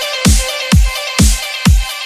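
Electronic dance music with a heavy, pitch-dropping kick drum about twice a second under layered synth notes.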